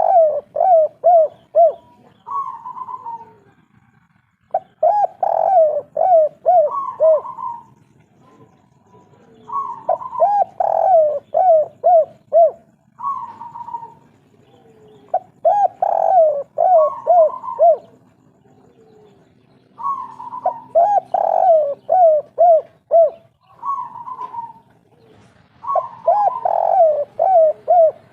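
Spotted doves (tekukur/derkuku) cooing their 'kuk 3' song over and over. Each phrase is a higher opening coo followed by a quick run of short, falling coos, and the phrases come every few seconds with short pauses between.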